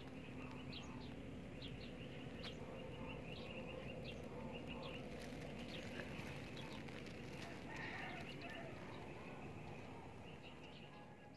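Faint outdoor background of birds chirping and calling in short repeated notes, over a steady background hiss.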